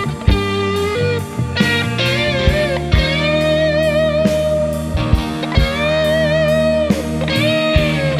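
Live rock band playing an instrumental passage: an electric guitar lead holds long notes with wide vibrato over a sustained bass and keyboard backing, with drum kit hits.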